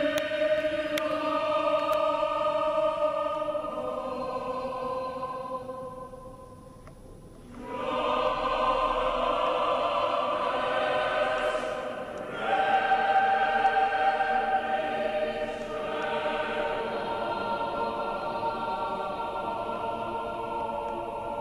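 Choir singing slow, sustained chords, with a brief pause about six seconds in before the voices enter again.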